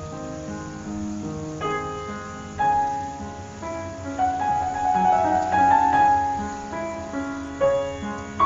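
Background piano music, a keyboard melody with chords.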